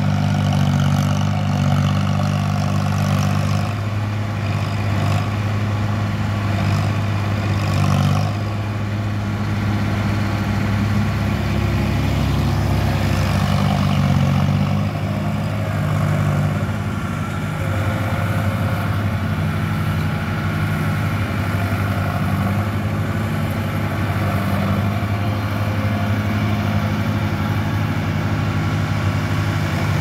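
Tractor diesel engine running steadily under load as it pulls a reversible plough through the ground.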